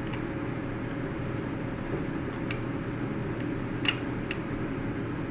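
Steady background hum with a faint steady tone, broken by a few small clicks and ticks as 35mm film is threaded onto a film camera's take-up spool.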